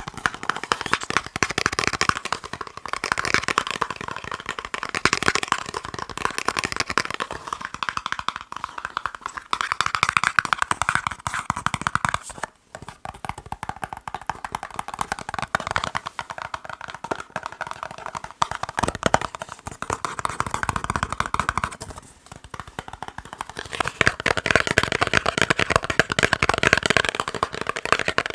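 Rapid, continuous finger tapping on boxes, a dense patter of small clicks that stops briefly about halfway through and again later.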